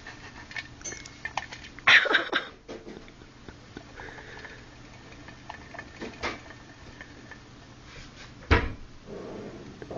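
Plastic hamster ball with a dwarf hamster inside, knocking and rattling as it rolls: scattered light clicks, a loud clatter about two seconds in and a single heavy knock near the end.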